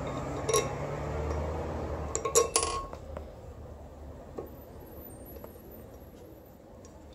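Sharp metallic clinks of steel bolts and a tool against a Honda B18 flywheel as its bolts are set into the centre holes by hand: one clink about half a second in, a louder cluster of clinks around two and a half seconds, then a few faint ticks.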